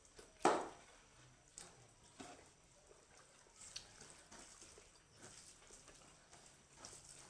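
A person chewing smoked pork with wet mouth sounds: scattered small clicks and smacks, with one louder, sharper smack about half a second in.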